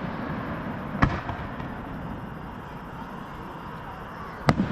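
Fireworks show: a sharp bang about a second in and another near the end, with a steady noisy din between them.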